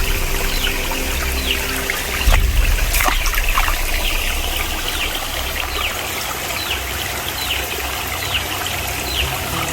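Stream water trickling and splashing over rocks, with many small bright chirps of water over a steady rush. Background music plays for the first two seconds or so, then drops out, and there is one sharp click about three seconds in.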